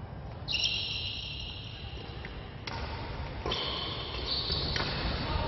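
Badminton rally: rackets strike the shuttlecock three times, about a second apart, with high squeaks of shoes on the court floor.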